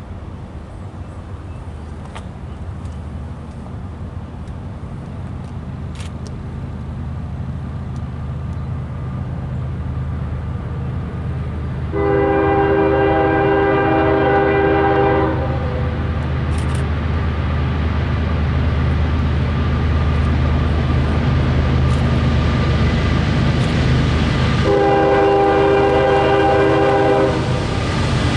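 Approaching train locomotive, its low engine rumble growing steadily louder, sounding its horn in two long blasts of several tones at once: one about twelve seconds in lasting some three seconds, and another near the end.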